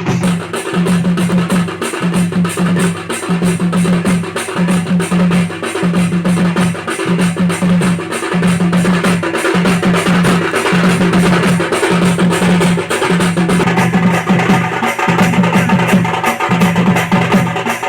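Loud drum-heavy music with a steady, driving beat and a repeating low bass pulse.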